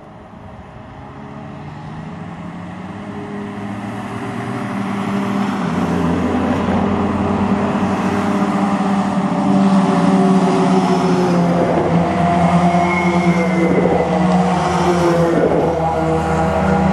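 Convoy of military vehicles, a truck and wheeled armoured vehicles, approaching on a road, their engines growing steadily louder as they near, with several engine tones layered together.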